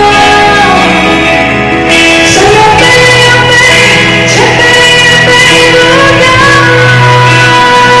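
Live pop band with a woman singing, heard from the audience seats of a large arena. The recording is loud and steady, with held instrument notes and guitar.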